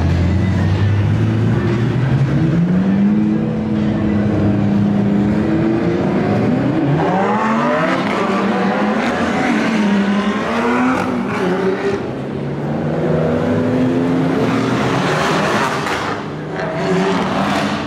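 Supercar engines revving and accelerating. One engine note climbs in pitch over the first few seconds and then holds, and from about six seconds in several engine notes overlap, rising and falling as more cars pull away.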